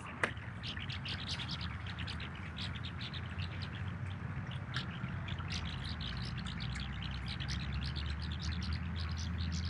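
Many small birds chirping in quick short calls, overlapping without pause, over a steady low hum.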